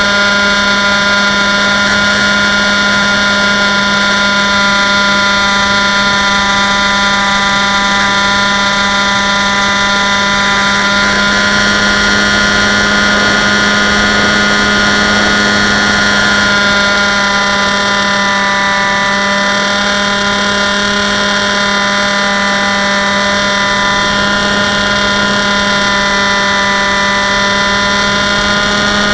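Electric motor and spinning propeller of a Dynam Hawk Sky RC plane, heard close up from a camera mounted on the plane in flight. It makes a steady buzzing whine that holds one pitch, with air rushing past underneath.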